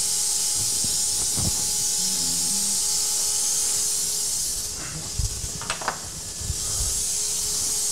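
Steady hiss, with a few light knocks and clicks a little past the middle as a workpiece is handled at the table.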